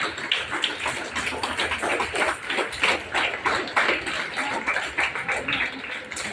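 An audience of schoolchildren applauding: dense, irregular hand clapping that starts suddenly and tapers off near the end.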